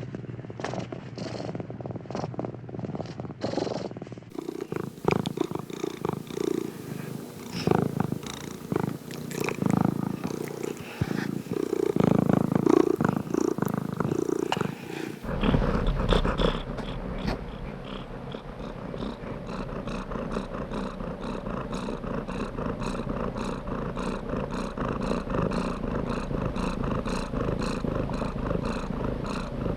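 Domestic cat purring with a steady pulsing rhythm. The sound changes character abruptly about four seconds in and again about halfway through, as different purring recordings follow one another. The middle stretch is louder and more uneven.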